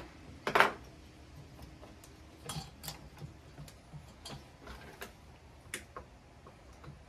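Scattered clicks and taps of metal and plastic parts being handled on a partly disassembled chainsaw, with one louder knock about half a second in.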